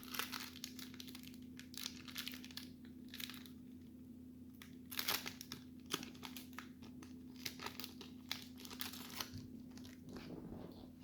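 Plastic trading-card pack wrapper crinkling and tearing as it is opened by hand, in short irregular crackles, over a faint steady hum.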